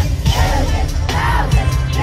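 Live pop concert sound in an arena: loud, bass-heavy music with a drum beat and a woman's voice singing over it through the PA, with crowd noise underneath.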